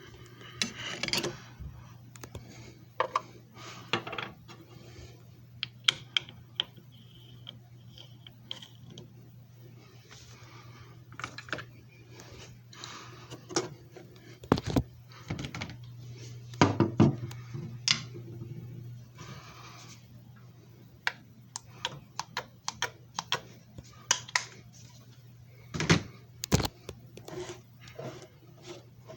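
Scattered clicks, knocks and light rattles of hands handling a JFJ Easy Pro disc repair machine and its plastic parts, over a steady low hum.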